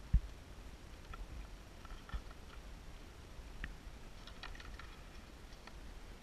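Handling noise from the camera being moved: a single sharp bump just after the start, then scattered light clicks and taps over a low wind rumble. The helicopter's rotor is not turning.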